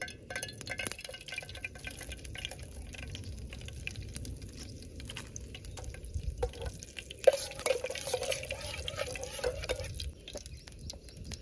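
Whole spices crackling and sizzling in hot oil in a cooking pot, with many small pops. About seven seconds in comes a sharp knock, then about two seconds of louder sizzling. A low wind rumble on the microphone runs underneath.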